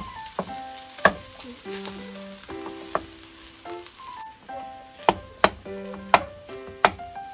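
Rice, beef and egg sizzling as they stir-fry in a frying pan, with a wooden spatula scraping and knocking sharply against the pan several times, most of the knocks in the second half.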